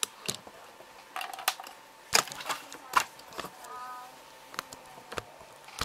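Scattered sharp clicks and taps from hard plastic model parts, tools and the camera being handled and repositioned over a cutting mat.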